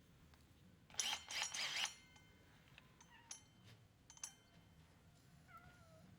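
Faint metal clicks and a short rattle of hole saw parts being handled and fitted together, with a brief faint wavering animal call near the end.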